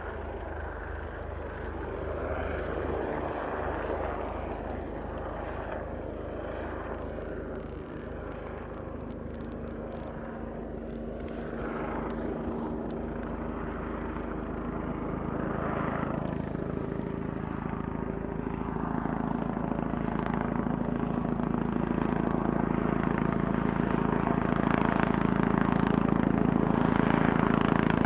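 Life Flight medical helicopter approaching to land, its rotor and engine growing steadily louder through the second half.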